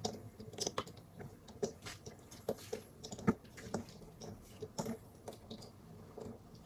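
Maine Coon cat biting and licking a catnip ball in a wall-mounted holder: irregular chewing clicks, about two a second.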